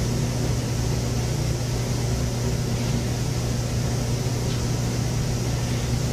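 Steady low hum with an even hiss behind it, the background noise of the interview-room recording, unchanging throughout.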